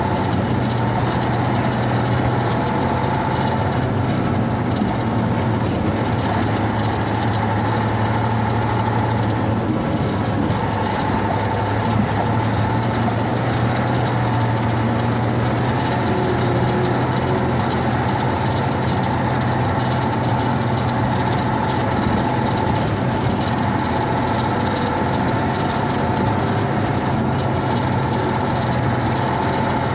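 A motor vehicle's engine running steadily while driving, with tyre and road noise, heard from inside the cab.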